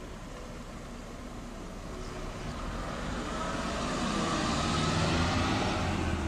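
A Renault Scénic minivan driving past close by, its engine and tyre noise swelling to a peak about five seconds in.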